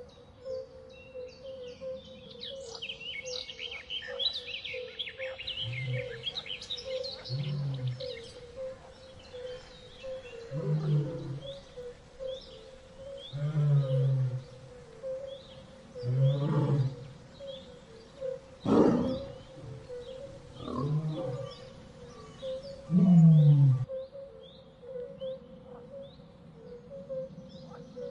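Big cat giving a series of deep, hoarse grunting calls every two to three seconds, the loudest near the end. Birds chirp and a steady hum runs underneath.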